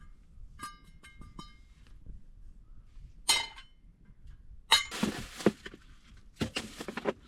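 Small hard objects clinking with a short ring: a quick run of about four light clinks about a second in, then a louder ringing clink. Rustling handling noises follow near the end.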